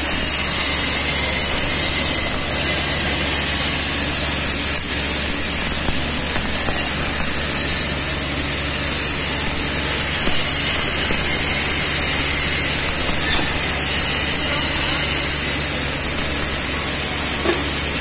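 Steady hissing noise over a low hum from GMAW (MIG) arc welding on a steel pipe-to-flange joint, mixed with the general noise of the fabrication shop.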